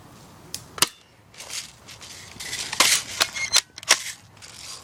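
Airsoft guns firing: about six sharp snaps at uneven intervals, one just under a second in and a cluster near the end, mixed with rustling and crunching of brush.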